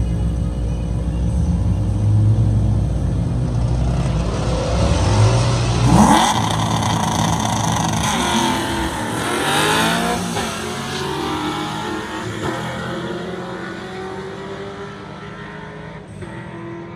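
Drag-racing cars leaving the line: a heavy low engine rumble, then about six seconds in the engines rev hard with rising pitch through several gear changes, and the sound fades as they pull away down the strip.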